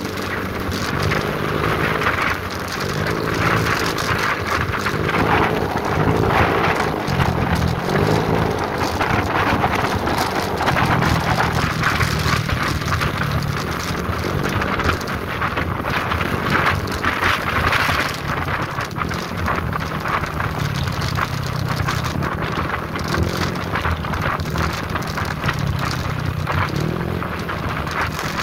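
Wind rushing over the microphone of a moving motorcycle, over the engine's steady low hum.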